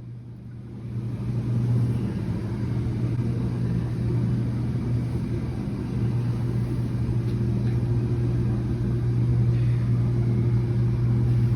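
A bath running: a steady low rumble with a hum under it, swelling in about a second in and holding steady.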